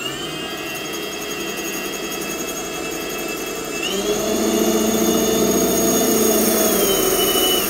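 Cordless Milwaukee drill, set to plain drill rather than hammer, boring a quarter-inch masonry bit into hard porcelain wall tile. There is a steady motor whine that speeds up about four seconds in, with the bit's grinding against the tile growing louder, then slows again near the end.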